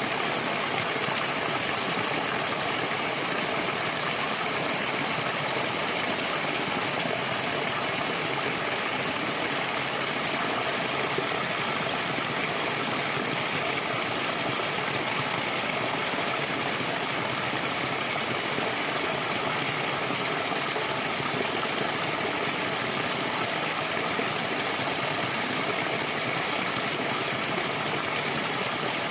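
Flowing water rushing steadily, an even continuous sound with no breaks or thunder.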